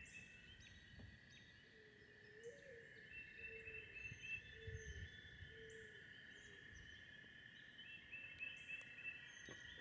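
Faint dawn nature ambience: a steady high-pitched chorus runs throughout, with birds chirping in short repeated series over it. A run of low, short hooting or cooing notes comes in about two seconds in and fades out around six seconds.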